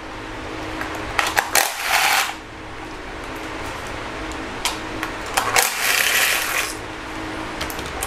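Cordless ratchet spinning bolts out of the ignition coils in two short runs, with sharp metallic clicks of tool and bolts against the engine between them. A steady low hum sits underneath.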